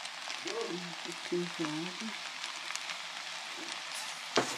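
Spaghetti with sardines and oil sizzling in a frying pan while a metal spoon stirs it, a steady hiss, with one sharp clink near the end.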